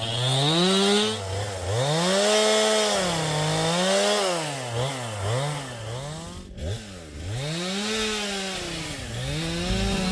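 Two-stroke chainsaw running under load while bucking firewood logs. Its engine pitch rises and drops back again and again, with a short dip about two-thirds of the way through.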